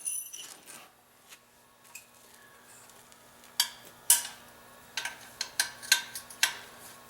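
Metal hand tools clinking together as wrenches are rummaged through, with a handful of sharp metallic knocks in the second half.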